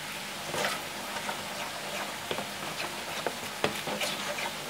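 Metal spoon stirring small fish through thick, wet flour batter in a plastic bowl: irregular squelches and clicks of the spoon against the bowl, the sharpest click about three and a half seconds in.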